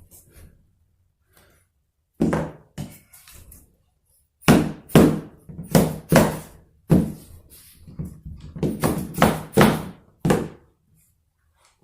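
Hammer blows knocking on a maple hardwood floor plank: about a dozen sharp thuds in irregular groups, starting about two seconds in.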